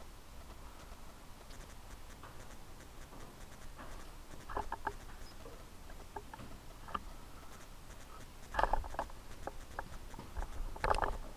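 Scattered small metallic clicks and taps as parts of a cylinder boring machine are handled and adjusted by hand. They come in short clusters, the loudest near the end; the machine is not running.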